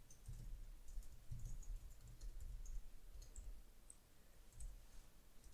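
Faint clicking of computer keyboard keys as code is typed, in irregular short runs.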